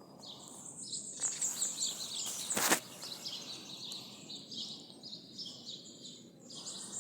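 A small bird chirping in rapid repeated chattering series, high-pitched, with a short pause in the middle. A single sharp click about two and a half seconds in.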